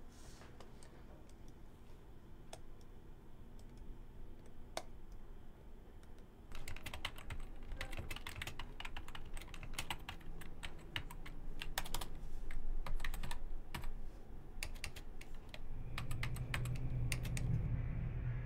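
Typing on a computer keyboard. A few scattered key clicks, then quick, continuous typing from about six seconds in, thinning out near the end as a low steady hum comes in.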